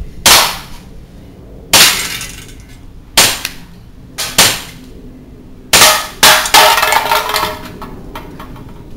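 WE Sig P226 gas blowback airsoft pistol firing at an aluminium drink can on a post, with BBs striking the can: about eight sharp cracks, each ringing briefly. A quick run of three comes about six seconds in and ends in a longer rattle as the can is knocked off.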